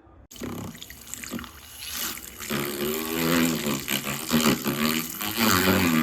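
Water running from a tap into a sink or container, starting and stopping abruptly, with a pitched ring rising out of the splashing in the second half.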